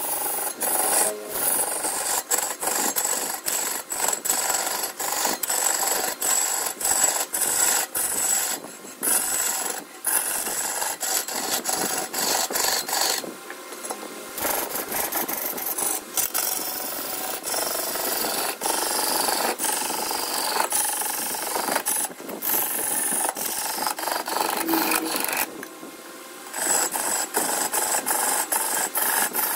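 A tool scraping against spinning redwood on a wood lathe: a steady rasping, broken by a few brief pauses.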